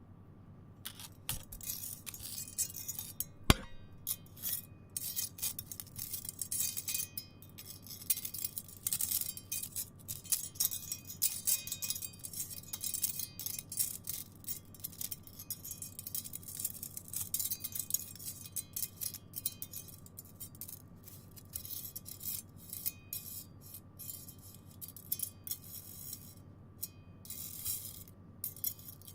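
Metal chain being dragged across a metal cookie cutter: a continuous, irregular clinking and scraping rattle of links on thin metal, with one sharp knock about three and a half seconds in.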